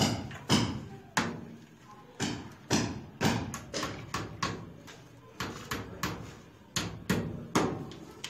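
Hammer blows on a brick wall during electrical conduit work: about fifteen sharp knocks at an uneven pace, each with a short ringing tail, with brief pauses about halfway through and near the end.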